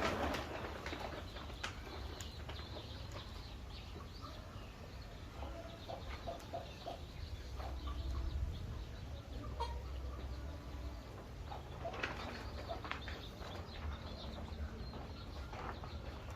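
Poultry moving about, with bursts of wing flapping and a few short calls, over a low steady hum.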